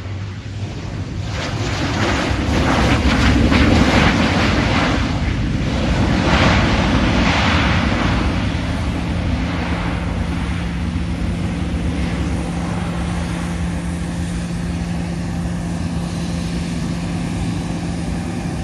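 Business jet's twin rear-mounted turbofan engines at takeoff power, a loud roar that swells as the jet rolls past, peaks, then eases as it heads away down the runway, with a steady low hum underneath in the second half.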